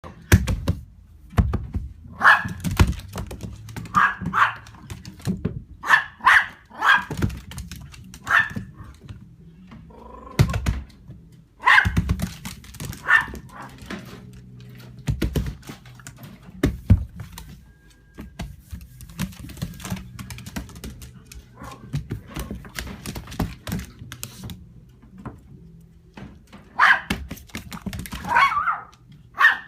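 A puppy giving short, high-pitched yips and barks, one to three at a time with pauses between them, among scattered knocks and thumps over a low steady hum.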